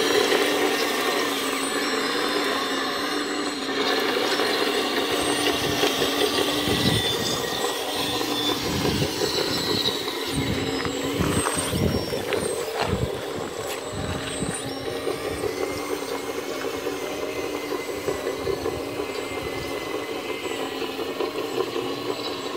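Hidromek H4 500 Metalhobi RC excavator's hydraulic pump and motor whining steadily while it digs gravel in a shallow stream, the pitch shifting slightly as the arm moves. A run of scrapes and knocks from the bucket working stones comes between about seven and fourteen seconds in.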